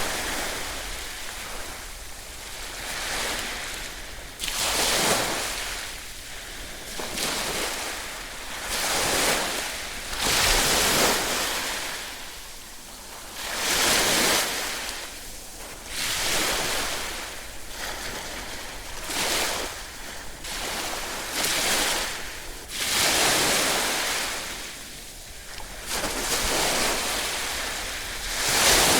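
Ocean waves breaking and washing on a shore, one surge after another every couple of seconds, with no other sounds.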